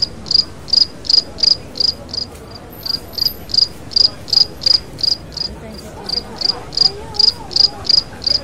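A short high electronic beep repeating steadily, about three times a second.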